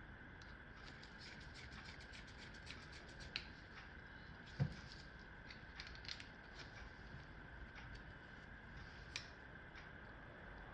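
Faint, scattered clicks and taps of small screws and a screwdriver on a Penn Fierce II spinning reel's side plate as its three screws are put in, with one louder knock about four and a half seconds in. A faint steady high-pitched hum runs underneath.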